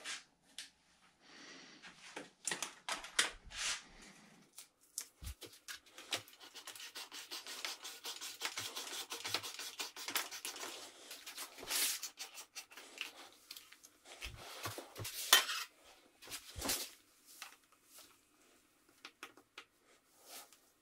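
Hands-on bicycle work on a Shimano 105 road lever and its cables. A steel inner cable slides and scrapes, and plastic and metal parts and a tool click, rub and clink in an uneven stream, with one sharper knock about three-quarters of the way through.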